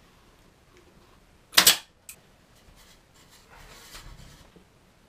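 A pneumatic pin nailer fires once about one and a half seconds in, a single sharp pop, driving a brad pin into a wooden bracket. It is followed by a light click and, near the end, a faint rustle as the wooden cabinet is handled.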